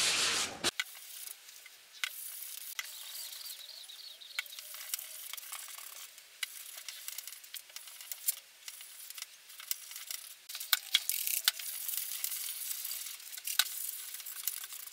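Tissue paper wiping water-based stain over a bare wooden guitar body: a soft, wet rubbing with scattered light clicks. It is louder for the first half-second or so, then drops to a faint wiping.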